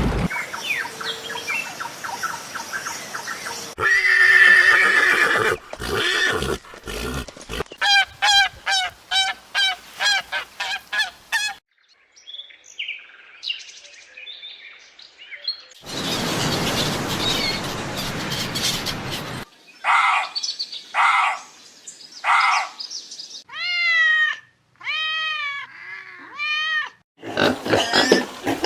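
A run of different animal calls spliced one after another: a quick series of short pitched chirps, then after a quiet gap a noisy stretch and a few arched, rising-and-falling pitched calls.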